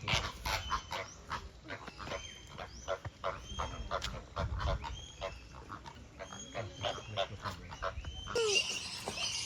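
A flock of flamingos calling, many short goose-like honks overlapping one another; shortly before the end, higher, busier bird chirping comes in.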